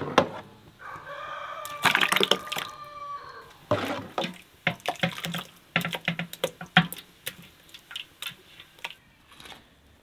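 Metal ladle and bowl knocking and scraping against a large aluminium pot while hot liquid is scooped and poured back, with splashes and drips. A rooster crows once in the background about a second in.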